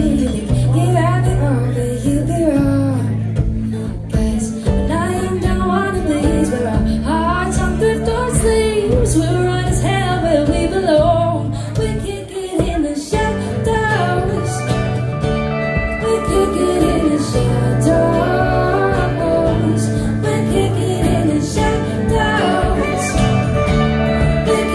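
A live band playing a song on acoustic guitar, electric guitar and electric bass, with a woman singing over it. The bass moves between steady notes every second or two, and the music dips briefly about halfway.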